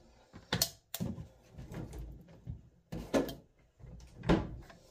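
A few separate knocks and clicks of things being handled on a kitchen counter, around a plastic jar and its lid. The loudest knock comes near the end.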